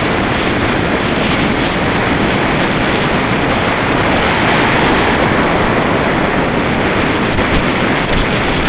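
Wind rushing over the microphone of a bicycle's handlebar-mounted camera while riding fast, a steady loud rush.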